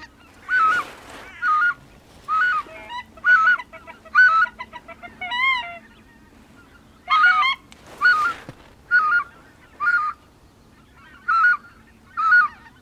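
White-fronted goose honks: loud, short calls in a regular series of about one a second, with a brief pause midway and one differently shaped call just before it.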